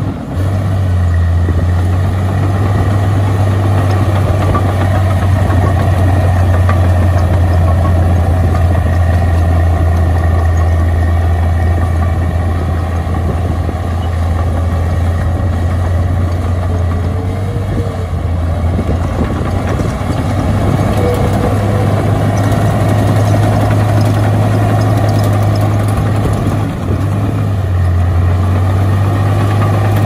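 Komatsu D68E crawler bulldozer's diesel engine running steadily with a strong low hum as the dozer pushes soil with its blade. The sound dips briefly a little past halfway and again near the end.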